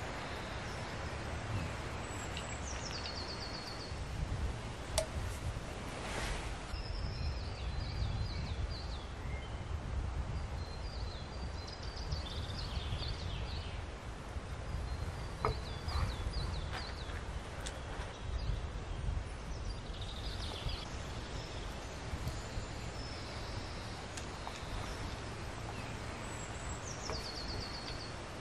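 Songbirds singing in short repeated phrases, some falling in pitch, over a low steady rumble, with a few faint clicks.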